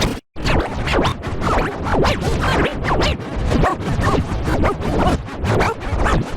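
Harsh, digitally distorted cartoon audio with a rapid scratchy stutter and many short squeaky pitch glides, cutting out briefly just after the start.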